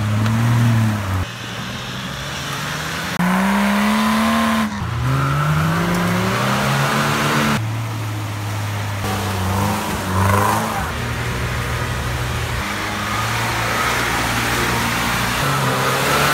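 Off-road 4x4 engines, among them a Nissan Patrol and a UAZ-469, revving and labouring as they drive through deep mud, the pitch rising and falling with the throttle. The sound changes abruptly every few seconds as it cuts from one vehicle to another.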